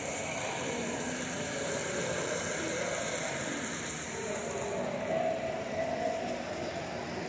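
Steady hubbub of a crowded hall: indistinct voices over a constant hum, with small model trains running on the layout.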